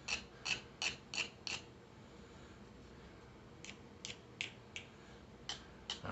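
Short strokes of a flat file across the edge of a G10 pistol grip panel, in three quick runs of several strokes each with pauses between, rounding off a sharp corner.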